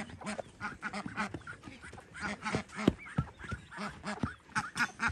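A small flock of ducks quacking in a rapid run of short, repeated calls.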